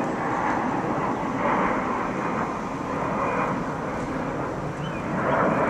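Jet airliner flying low overhead: a steady rushing engine noise that swells slightly about a second and a half in and again near the end.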